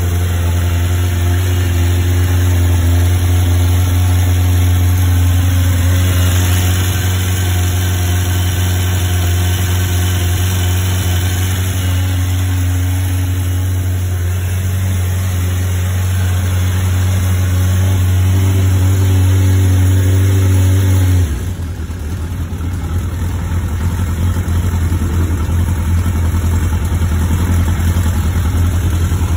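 Suzuki Katana motorcycle's inline-four engine idling steadily, running again after sitting unstarted for about five months. About 21 seconds in, the steady low hum cuts off abruptly and gives way to a rougher, noisier engine sound.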